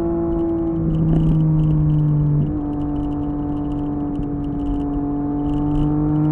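Triumph Street Triple 765 RS's inline three-cylinder engine idling steadily through an SC Project S1 titanium exhaust: a steady hum whose pitch wavers slightly, with a faint fast ticking over it.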